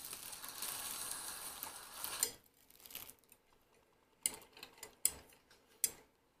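Food sizzling in a frying pan, cutting off about two seconds in, then four light clinks of kitchen utensils about a second apart.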